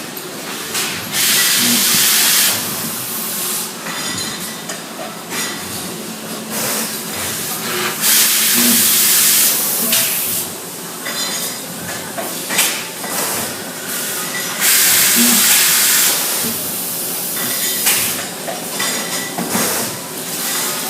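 Factory machinery running in a repeating cycle: a loud burst of hissing air about every seven seconds, each lasting a second or two, over a steady mechanical clatter with light clinks.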